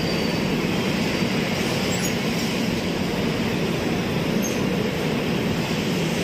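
Rajdhani Express passenger train rolling on the rails, heard from a coach doorway: a steady, dense rumble of wheels and running gear.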